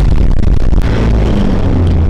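Chevrolet D20 pickup's diesel engine running under way, heard from inside the cab, with a steady low rumble. The sound changes abruptly a little under a second in.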